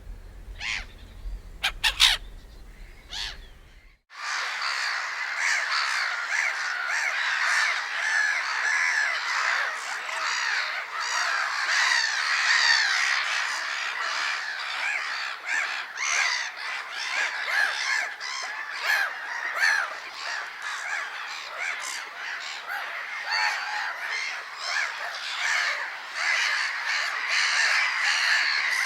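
Gulls calling: a few separate short calls over a low rumble, then about four seconds in a sudden switch to a dense colony of many gulls calling and squawking over one another without a break.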